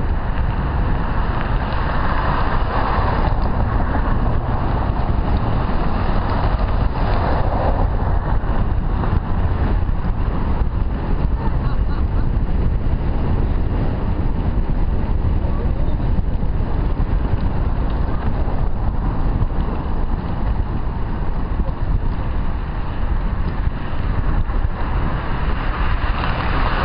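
Steady wind rush and buffeting on a helmet-mounted camera's microphone while cycling at speed on a road bike.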